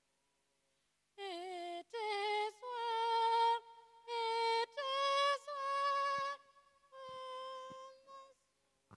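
A woman singing alone without accompaniment, a slow melody of held notes with vibrato, starting about a second in and stopping shortly before the end. A few faint knocks sound under the last notes.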